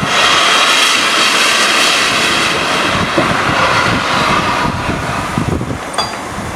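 Loud steam hiss from the cylinder drain cocks of the LNER Peppercorn A1 Pacific steam locomotive Tornado as it gets under way, its cylinders still cold and blowing out steam and condensed water. The hiss starts suddenly and eases off over the last couple of seconds.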